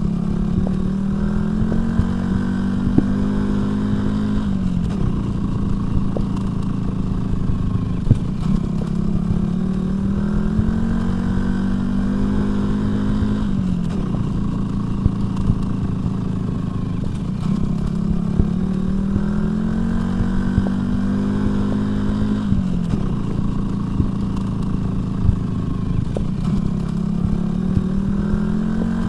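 Motorcycle engine running steadily. Its pitch climbs slowly for a few seconds and then drops back, a cycle that repeats about every nine seconds, with scattered clicks and knocks throughout.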